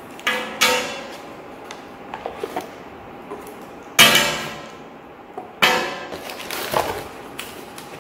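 Wiring harnesses with hard plastic connectors set down on a bare steel table. Four sharp clangs ring on briefly: two close together right at the start, the loudest about four seconds in, and another a second and a half later, with lighter clicks and handling noise between them.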